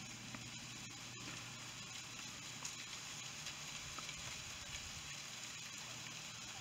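Faint rustling and light crackling from a herd of goats browsing the leaves and twigs of a young tree, over a steady hiss.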